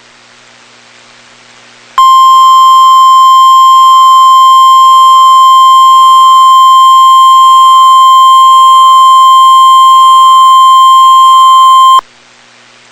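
NOAA Weather Radio warning alarm tone: one loud, steady single tone near 1050 Hz held for about ten seconds, starting about two seconds in and cutting off sharply, with faint radio hiss before and after. The tone announces that a warning follows, here a tornado warning.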